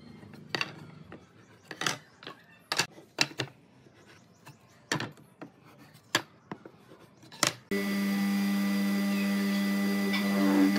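Sharp, scattered knocks of wooden boards being handled and laid on a workbench. About three-quarters of the way in, a drill press motor cuts in and runs with a loud steady hum, its bit boring into a pine board.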